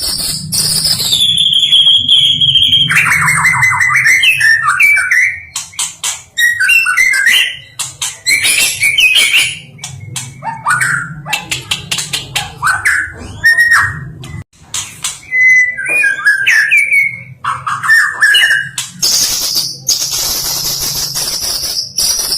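White-rumped shama (kucica hutan) singing a varied, loud song: long clear whistles gliding downward, rapid trills and quick warbled phrases, with sharp clicking notes between them. A steady low hum runs underneath.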